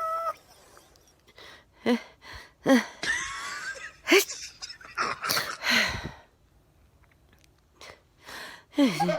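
A woman's pre-sneeze breathing: sniffs, gasping in-breaths and short voiced catches in the throat, several in a row, with a quieter stretch in the middle and more catches near the end as the sneeze builds.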